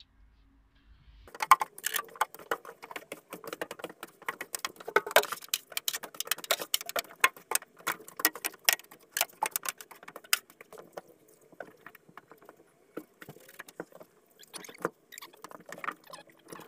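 Rapid clicking, scraping and tapping of hands and tools working over a van's bare metal floor, starting about a second in, dense for several seconds, then sparser from about ten seconds in.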